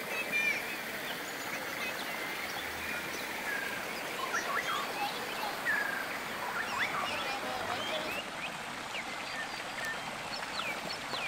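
Birds chirping and whistling in short scattered calls over the steady rush of a rocky stream.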